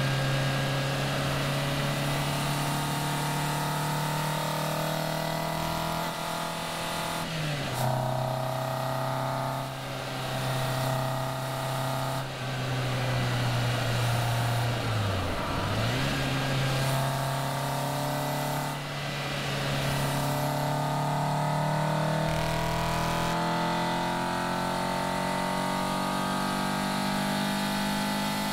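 Caterham Seven's engine singing sweetly under way, holding a steady note over wind and road noise. Its pitch drops sharply about seven seconds in and dips again around fifteen seconds in, as at gear changes, then settles back to a steady note.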